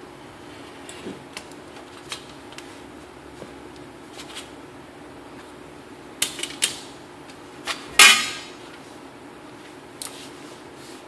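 Scattered light clicks and taps of hand tools being handled on a workbench. A sharper pair comes about six seconds in, and a loud clattering knock with a brief ring comes about eight seconds in.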